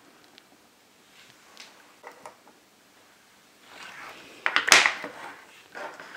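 Small plastic cake moulds being handled and set down on a tabletop: light taps and scrapes, with a louder burst of clicking and rustling about three-quarters of the way through.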